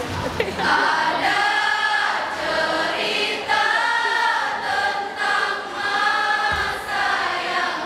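A choir singing in harmony, in phrases of held notes about a second long each.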